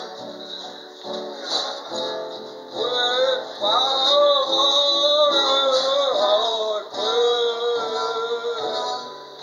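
Man singing over a strummed acoustic guitar. The first few seconds are guitar chords alone, then the voice comes in with long held notes.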